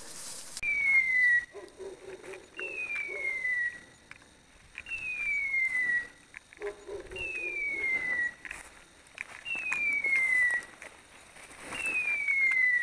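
Electronic beeper on a hunting dog's collar sounding a falling whistle-like tone six times, evenly about every two and a half seconds. Brush rustling through undergrowth between the tones.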